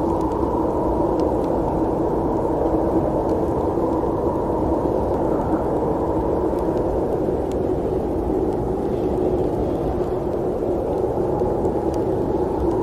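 Steady rumble of a moving train, even and unbroken, with a few faint clicks now and then.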